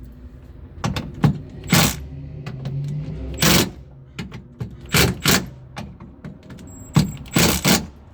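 Irregular metallic knocks and clanks, some in quick pairs, as a hand tool works on a car door's latch and lock actuator assembly while it is tightened down.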